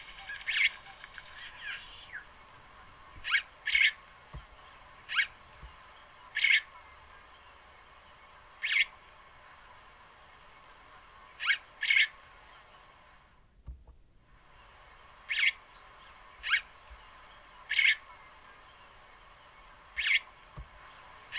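A bird giving short, sharp calls, one every second or two and sometimes two in quick succession, over a faint steady background.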